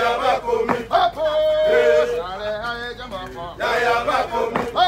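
Men singing a chant-like marching song, with some notes held long.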